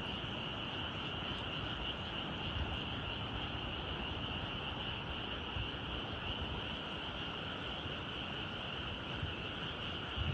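A dense chorus of many frogs calling from rice paddies, blending into one steady, unbroken high trill. A low rumble runs underneath.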